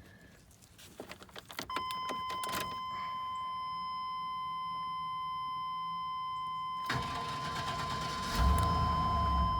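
Chevrolet Silverado 2500 pickup being started: a few clicks of the key, then a steady high warning tone comes on and stays, and about seven seconds in the starter cranks the engine for over two seconds without it firing. This is the crank-no-start that a new crank sensor has not cured, a fault the owner traced to the truck's anti-theft security module.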